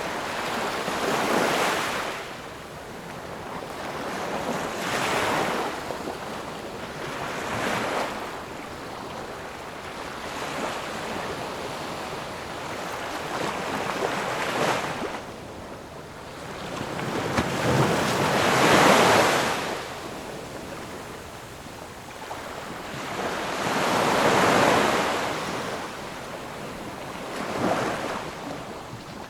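Ocean surf: waves breaking one after another, each a swelling rush of noise that rises and falls away every few seconds, the loudest surge about two-thirds of the way through.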